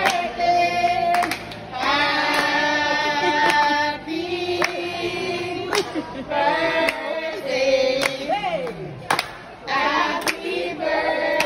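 A group of restaurant waitstaff singing together in long held notes, with sharp hand claps about every second.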